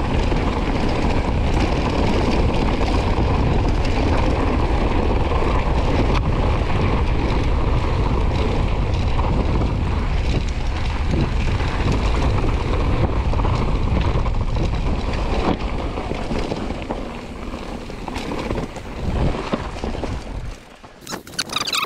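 Wind rushing over the microphone on a mountain bike at descending speed, mixed with rattling of the bike over rough trail. It eases about two-thirds of the way through and drops off abruptly near the end.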